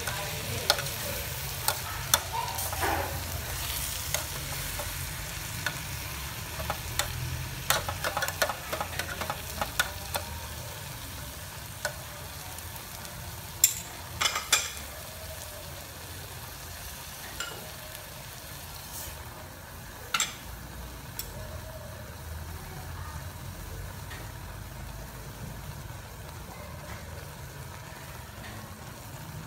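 Mushrooms and herbs sizzling in a metal pot while a spoon stirs them, with sharp clinks of the spoon against the pot, frequent in the first half and only a few after that. The steady sizzle goes on underneath.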